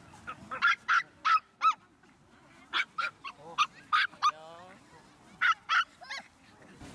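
Small Maltese dogs barking in short, high-pitched yaps, about a dozen in irregular groups, with a brief falling whine a little past four seconds in.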